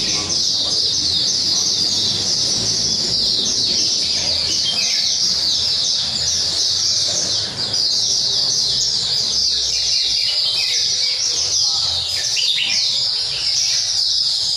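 Small caged songbirds chirping and twittering in a dense, unbroken high chorus of quick downward-sliding notes.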